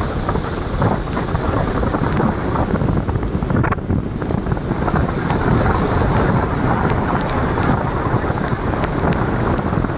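Wind buffeting the microphone: a loud, steady, low rumbling roar with no break.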